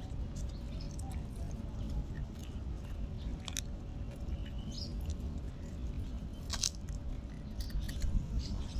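Puppy biting and chewing a cracker biscuit held out to it, with a few sharp crunches, over a steady low rumble.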